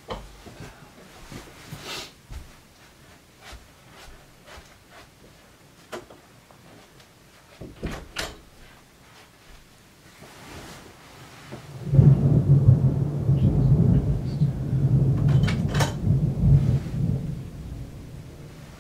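Thunder: a loud low rumble breaks in about twelve seconds in and rolls on for around five seconds before fading. Before it there are only faint scattered knocks and clicks.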